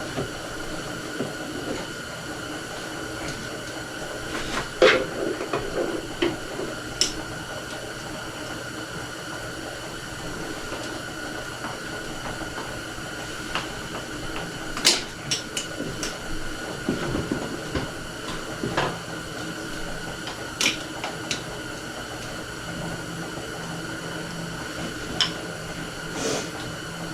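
Scattered sharp clicks and clanks of hand tools and metal parts being handled in a group every few seconds, over a steady background hum.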